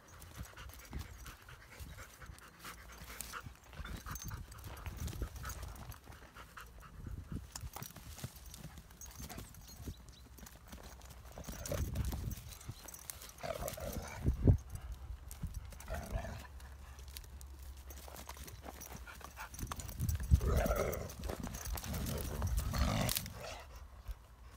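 Kangal dogs scuffling on grass: irregular paw scrabbling and thumps, with one sharp loud knock about halfway through. Brief dog vocal sounds, like short growls, come a little before the middle and again near the end.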